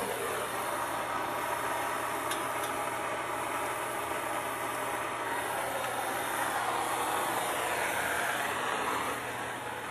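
Plumber's gas torch flame running steadily as it heats a copper pipe fitting for soldering, growing louder for a few seconds past the middle and easing near the end.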